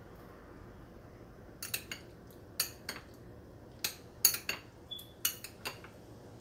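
Metal spoon clinking against glass bowls while stirring coloured papaya cubes: a quick irregular run of sharp clinks starting about a second and a half in.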